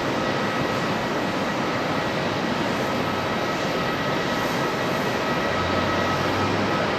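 Boeing 767-300 jet airliner's twin turbofan engines running at takeoff power: a steady rush of jet noise with a thin high whine over it.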